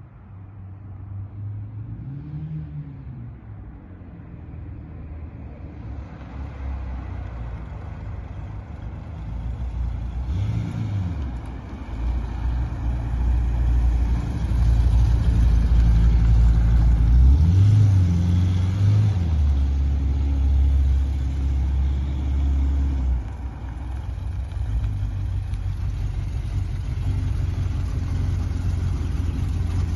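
Jaguar E-type Series 3's 5.3-litre V12 engine running as the coupe drives up, growing louder with several short revs, then running steadily at idle close by over the last few seconds.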